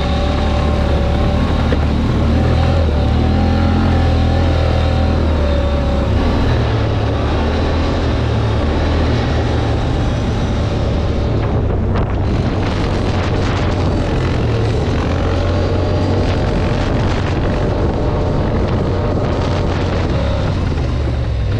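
ATV engine running steadily as the quad rides along, its note shifting slightly with the throttle, with wind on the microphone. In the second half, short knocks and rattles come through over the engine.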